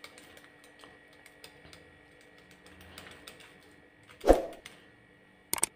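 Cheese being grated on a flat handheld steel grater: a run of light rasping ticks, about five a second, that fade after about two seconds. A single louder knock comes about four seconds in, and two sharp clicks near the end.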